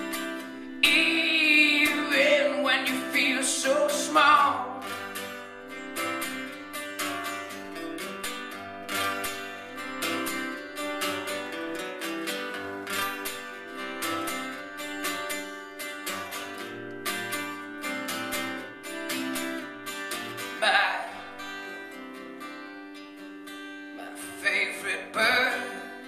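Steel-string acoustic guitar playing an instrumental passage of a song, with a man's sung notes over it in the first few seconds and briefly twice near the end.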